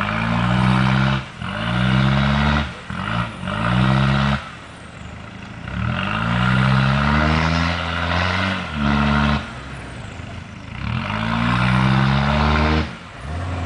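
Nissan Patrol 4x4 bogged in mud, its engine revved hard in about five bursts, the longest several seconds, falling back toward idle between. The wheels spin in the mud as it tries to drive out.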